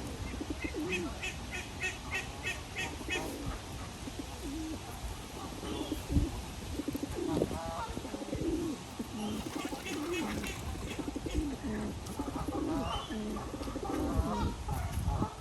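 Pigeons cooing repeatedly, with a small bird giving a run of quick high chirps, about four a second, early on and again around the middle.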